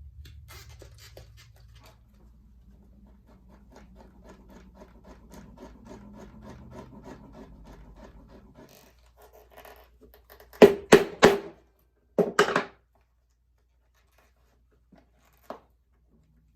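Faint scratching and rubbing, then a hammer striking sharply three times in quick succession and once or twice more a second later, as when setting metal fittings in leather.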